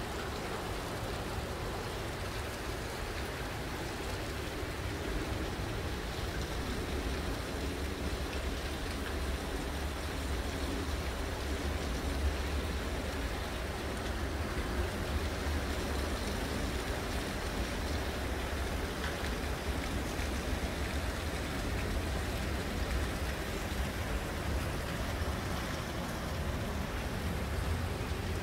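Heavy rain falling, a steady even hiss with a low rumble underneath.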